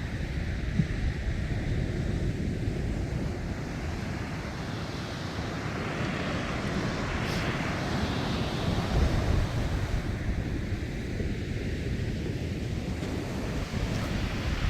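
Sea waves washing in, with wind rumbling on the microphone; the hiss of a wave swells and fades about halfway through, and another starts to build near the end.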